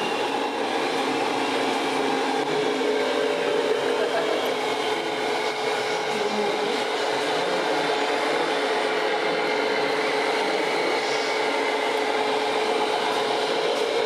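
Steady whirring hum of small electric motors and gearboxes from radio-controlled scale model trucks, with one held tone over a noisy whir.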